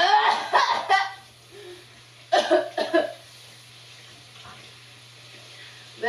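A woman coughing hard in two fits, a cluster of several harsh coughs in the first second and another a little over a second later. The coughs are faked for a coughing-up-blood prank.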